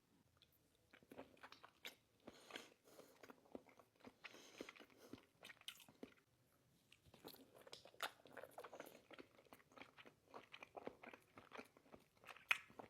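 A person biting and chewing raw salmon sashimi, with many small mouth clicks and crackles throughout.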